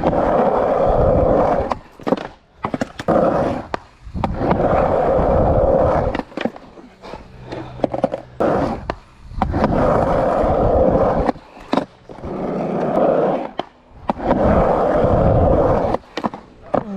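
Skateboard wheels rolling over a skatepark's ramps in about five loud passes, each lasting a second or two, broken by sharp clacks and knocks of the board striking the ramp and coping during trick attempts.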